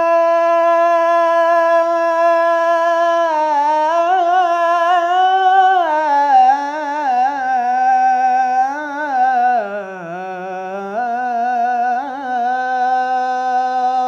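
A young male nasheed singer's unaccompanied voice sustains one long melismatic vowel. It opens on a steady held note for about three seconds, then moves into ornamented runs that wander up and down and dip lowest about ten seconds in, before settling on a held note near the end.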